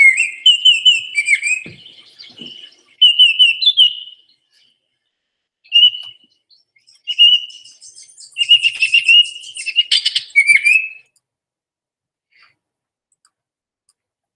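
Recorded Baltimore oriole song played over a speaker: a series of short, clear whistled phrases with pauses between them, stopping about eleven seconds in.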